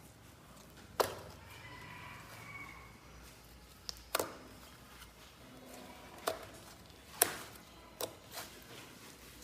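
Slime being worked by hand, giving a handful of sharp clicks and snaps, about five in all, the loudest about a second in and about seven seconds in.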